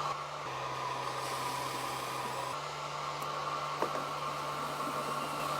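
A small electric motor running steadily, a low hum with a higher whine and a faint hiss, its pitch shifting slightly twice.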